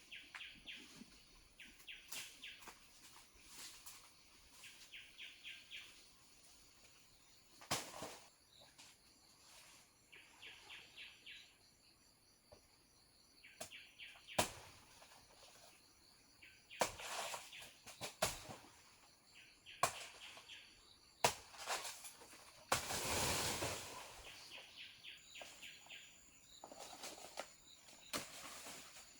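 Outdoor ambience: short trills of rapid high chirps repeat every couple of seconds. Scattered sharp knocks run through it, and there is a longer rustling burst about three-quarters of the way in.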